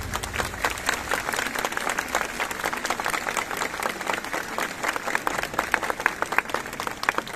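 Crowd applauding: many hands clapping at once, the clapping thinning out near the end.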